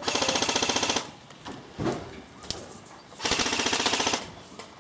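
Airsoft gun firing two full-auto bursts, each about a second long, a rapid even rattle of shots, the second starting about three seconds in.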